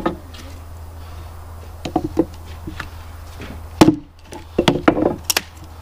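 Small axe chopping into a sawn block of cedar: scattered sharp wooden knocks, the loudest about four seconds in, then a quicker run of strikes.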